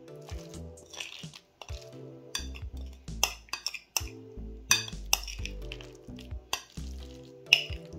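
A utensil stirring and clinking against a bowl, with several sharp clinks, the loudest near the end, over background music with held notes.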